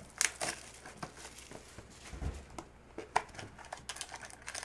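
Crinkling and tearing of packaging as a box of trading cards is opened, in a string of short crackly rustles.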